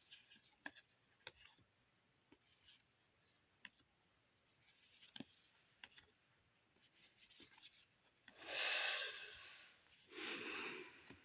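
Trading cards handled in gloved hands: soft rustles and light clicks as cards are slid and flipped against each other, with a louder rustling swish about eight seconds in and another shortly before the end as the stack is shuffled.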